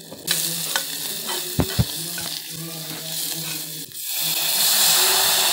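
Tempering spices, garlic and green chillies sizzling in hot oil in a steel pot as turmeric is stirred in, with a few sharp knocks of the spoon in the first two seconds. The sizzle grows louder about four seconds in.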